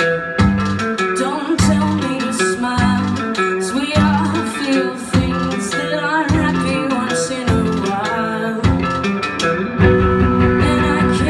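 Live rock band playing: electric guitar, bass guitar, drum kit and keyboard, with regular drum and cymbal hits over a repeating bass line.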